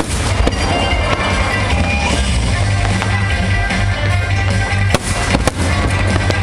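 Fireworks bursting over music, with a couple of sharp bangs about five seconds in.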